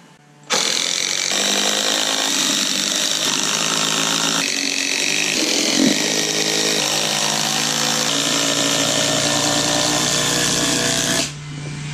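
DeWalt cordless drill boring a large hole into a stack of 4x4 timbers, the motor running steadily under load for about ten seconds, then dropping off near the end.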